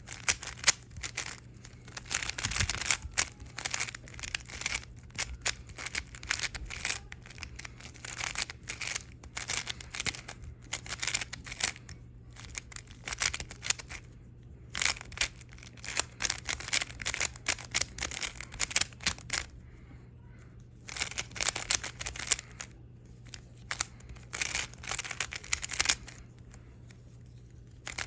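Plastic Rubik's cube being turned fast in a timed solve: quick runs of clicking and clacking layer turns, broken now and then by short pauses.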